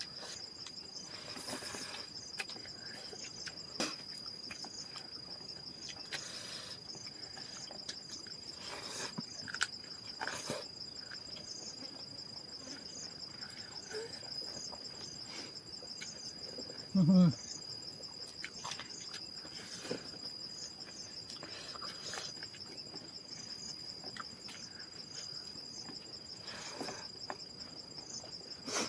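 Steady high-pitched insect trilling, with a fast pulsing chirp above it, runs on throughout. Scattered light clicks and knocks come through it, and a short vocal sound breaks in about two-thirds of the way through.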